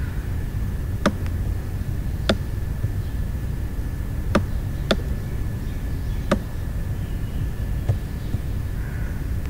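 Computer mouse clicking: six sharp single clicks at irregular spacing, the last one faint. Under them runs a steady low background rumble with a faint steady high whine.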